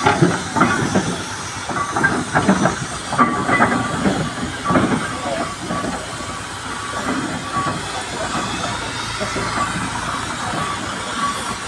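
Steam traction engine moving off along the road: steam hissing with irregular chuffs and clanks, strongest in the first five seconds, then a steadier running sound as it moves away.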